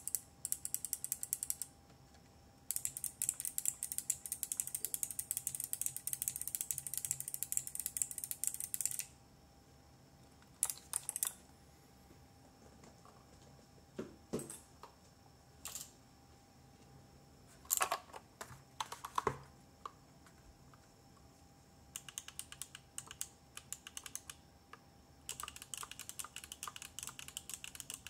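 Mechanical keyboard switches being pressed rapidly, sharp high clicks coming in runs of a few seconds each. A quieter stretch in the middle holds only a few single knocks.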